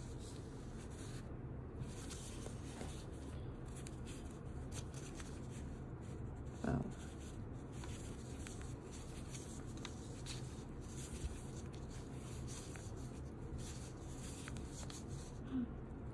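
Soft rubbing and scratching of a crochet hook pulling cotton yarn through stitches while working single crochet, over a steady low background hum. A short louder sound comes a little before halfway.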